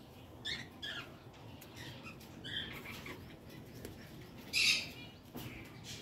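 Budgerigars giving scattered short high chirps, the loudest about four and a half seconds in.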